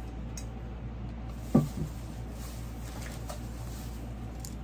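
Steady low hum of an air conditioner and fans. About a second and a half in comes one dull thump, the loudest sound, followed by a softer knock, as items are handled on the table.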